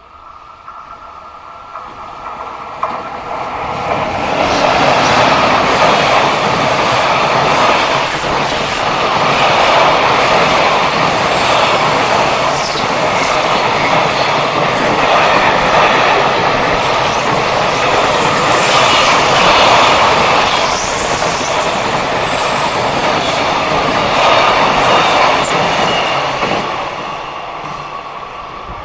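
Freight train passing, its wagon wheels clattering over the rails. The sound builds over the first few seconds, stays loud for about twenty seconds, then fades near the end, with a thin high whine partway through.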